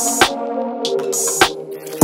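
Background music with a drum-machine beat: a few drum hits over held chords.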